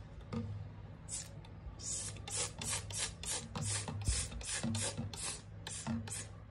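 Trigger spray bottle pumped over and over, each squeeze a short hiss, about three a second, as foaming cleaner is sprayed onto a sink drain strainer.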